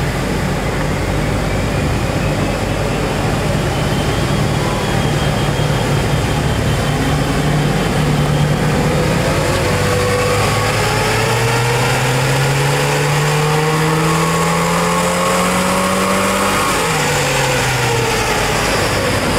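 Stock Holden Gemini's four-cylinder engine running on a chassis dyno: it holds a steady pitch for several seconds, then the revs climb steadily through a pull for about six seconds before the throttle comes off and the revs fall away sharply.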